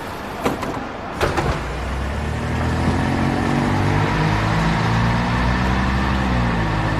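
A few sharp clicks, then a bus engine comes up about a second and a half in and runs steadily.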